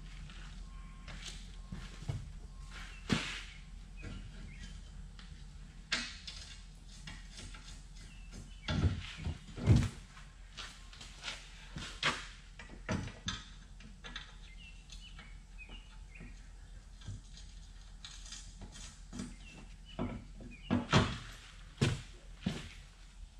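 Scattered clinks and knocks of metal radiator frame side pieces being handled and fitted to a truck radiator, with a few heavier thunks about nine seconds in and again near the end.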